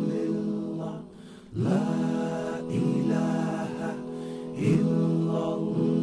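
Interlude music of a Bengali Islamic ghazal: layered voices hum sustained chords that swell and fade in waves, with a brief dip a little after a second in.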